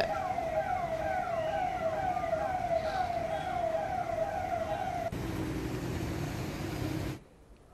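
Ambulance siren sounding in a fast repeating wail, each call falling in pitch, about two to three a second, for about five seconds. Then a lower steady hum with noise takes over and cuts off suddenly near the end.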